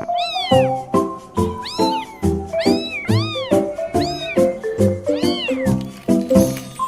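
Cat meows, each one rising and then falling in pitch, repeated about once a second over a music track with a steady beat and bass line.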